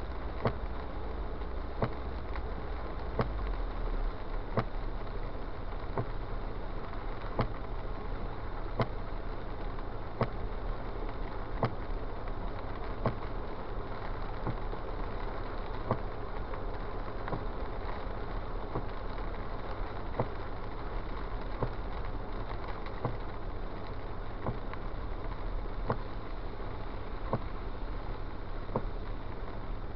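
Inside a car driving in rain: a steady rumble of engine and wet tyres, with a sharp click about every one and a half seconds from the windshield wipers sweeping.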